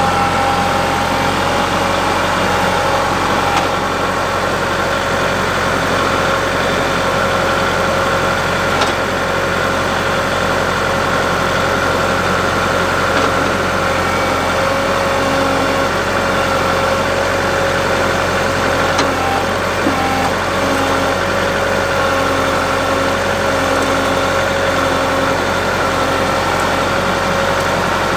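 An engine idling steadily at an even, unchanging speed, close by and loud.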